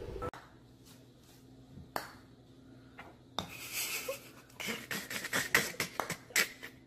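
Sharp clicks of a putter striking golf balls and balls knocking together on an indoor putting mat: two single clicks about a second and a half apart, then a quicker run of clicks.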